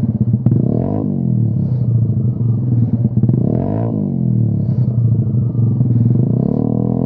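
Peugeot Speedfight 125 scooter engine idling through a Lextek MP4 aftermarket silencer, with two short throttle blips. The revs rise and fall about a second in and again near four seconds.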